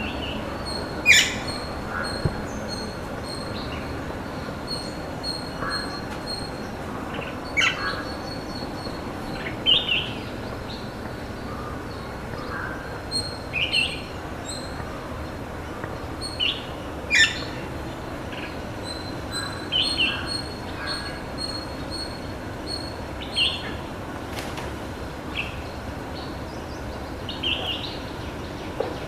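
Birds calling: short chirps every second or two, with two sharper, louder calls about a second in and just past the middle, over a high, rapidly pulsing trill and steady background noise.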